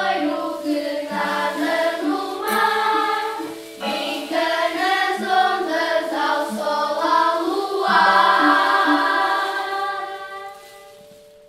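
Children's choir singing in unison over classroom xylophones and metallophones, ending on a long held note about eight seconds in that fades out, with one metal bar ringing on after the voices stop.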